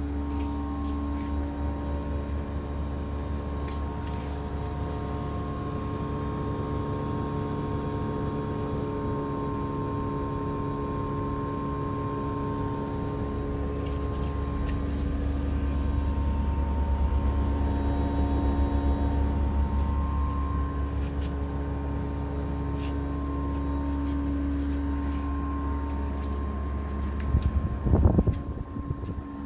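LG Dual Inverter split air conditioner's inverter compressor running with a steady low hum under several high whining tones that slowly drift in pitch and swell in loudness, as if speeding up. The owner reports this loud, high-pitched compressor noise as a recent, worsening fault, though the unit still cools. A short loud bump comes near the end.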